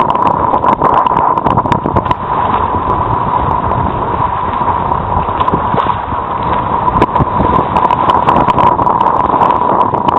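Wind buffeting the microphone over water rushing and splashing along the hull of a Hobie Mirage Adventure Island trimaran under sail, with many short knocks and slaps from the chop.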